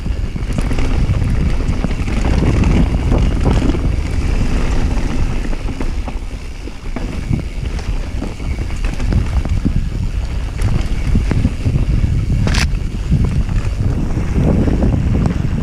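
Wind buffeting the microphone on a downhill mountain bike ride, mixed with the tyres rolling over a dirt trail covered in dry leaves. One sharp click near the end.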